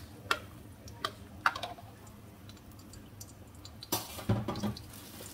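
Light clicks and taps of kitchenware around a wok on a gas hob as beaten egg fries, with a louder clatter about four seconds in.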